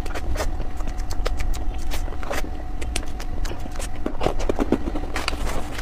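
Close-miked wet mouth sounds of eating soft cream mousse cake: irregular sticky smacks and clicks, several a second, over a steady low hum.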